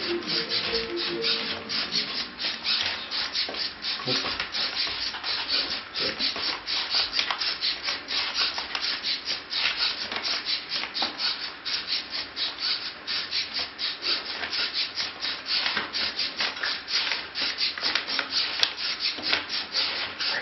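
The MG995 metal-gear hobby servos of a hexapod robot buzzing and grinding as they drive its legs, a dense scratchy noise in rapid, uneven pulses.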